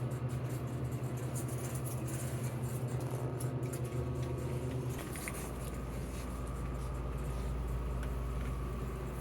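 A steady low mechanical hum with a fast pulsing, giving way about five seconds in to a deeper, steady rumble.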